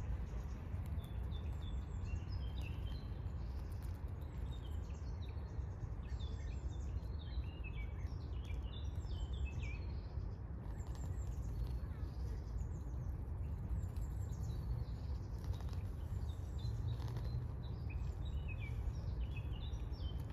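Small birds chirping and singing in many quick, high calls, in bunches through most of the stretch, over a steady low rumble of background noise.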